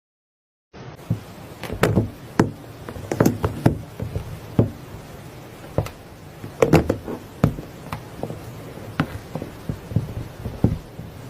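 Soft slime being pressed and squeezed by hand, giving irregular small clicks and pops, starting about a second in.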